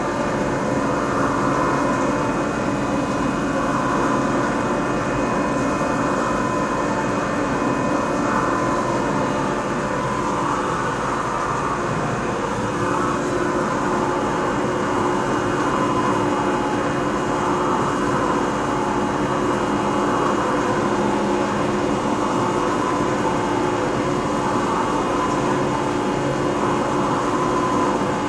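Haas CNC vertical milling machine cutting a round metal hub under flood coolant: steady spindle and cutting noise with coolant spraying. The machine's tones change about halfway through.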